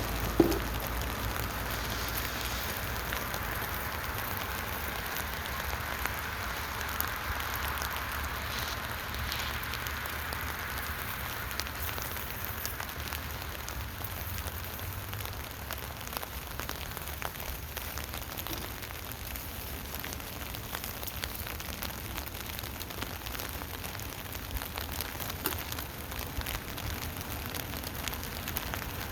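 Rain pattering steadily on the canopy of a work tent, with many fine drop ticks over a steady low hum. A sharp knock sounds about half a second in.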